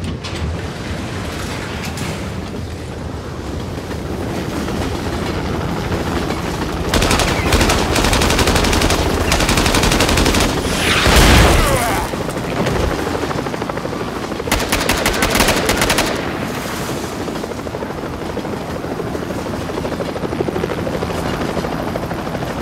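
Action-film sound mix of a helicopter and automatic gunfire: a steady low rumble throughout, with rapid bursts of gunfire about seven to ten seconds in and again near fifteen seconds. Around eleven seconds comes the loudest moment, a heavy crash with a falling whoosh.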